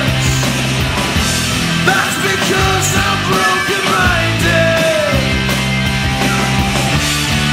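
Rock music with distorted guitars and a steady bass line, an instrumental stretch without vocals.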